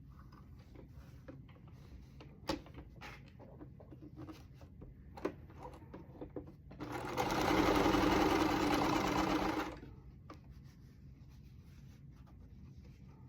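Brother LS2000 sewing machine, threaded with a twin needle, stitching a test seam in one steady run of about three seconds that starts about seven seconds in. Before it come a few scattered clicks and knocks from handling the machine.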